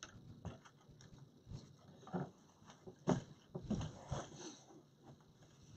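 Scattered rustles and light taps of hands handling decorations and working them into an artificial pine wreath. The loudest is about three seconds in.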